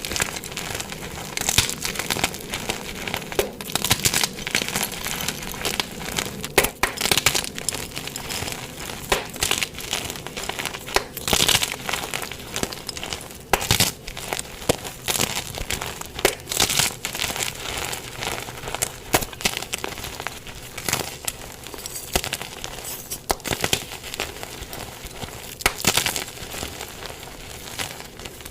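Blocks of gym chalk being crushed and crumbled, a dense steady crackle with louder, irregular crunches every second or two.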